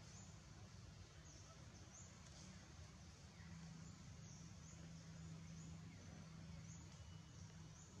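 Near silence: a faint outdoor background with a steady low hum and a scatter of faint, short high chirps.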